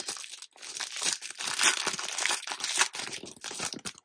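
A trading card pack's wrapper crinkling as it is opened by hand, a dense run of irregular crackles that stops abruptly near the end.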